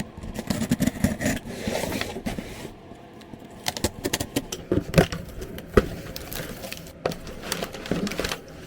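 Hands opening and handling a package: packaging rustling and scraping, with scattered sharp clicks and taps.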